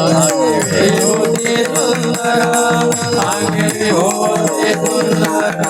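Devotional bhajan music: steady held tones under fast, busy metallic percussion, with a voice drawing out a gliding melody between the sung lines.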